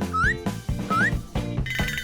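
Children's cartoon background music with a steady beat, overlaid with two short rising whistle-like sound effects about a second apart and a brief shimmering effect near the end.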